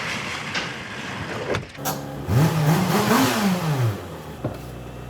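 Fiat 4x4's engine revved up once and let back down, with a few sharp knocks before and after the rev.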